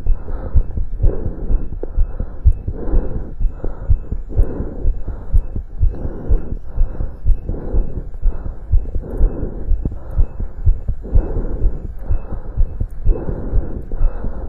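Heartbeat heard through a stethoscope during exercise, a quick run of low thuds, with a whooshing noise that swells and fades every second or so.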